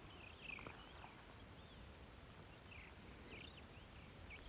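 Faint small-bird calls: a run of short chirps that rise and fall, repeating every half second or so, with a few soft ticks in the first second.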